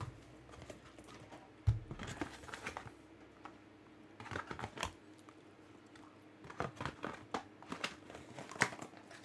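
Trading card packs and cards being handled at a table: soft rustling and clusters of light clicks, with one duller knock a little under two seconds in.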